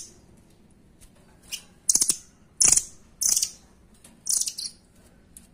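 Caged rambatan doraemon bird giving short, high, rattling calls. Four loud bursts come in quick succession from about two seconds in, with fainter ones around them.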